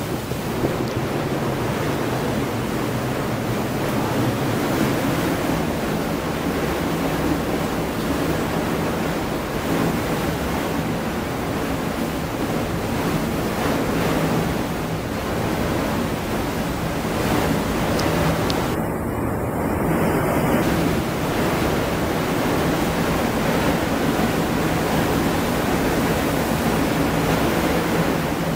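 Storm wind blowing across the microphone together with the rush of rough sea and waves breaking alongside a ship, a steady, dense noise. A faint steady low hum runs underneath.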